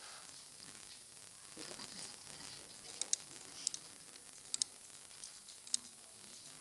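Computer mouse clicking a few times, mostly in quick press-and-release pairs, over a steady background hiss.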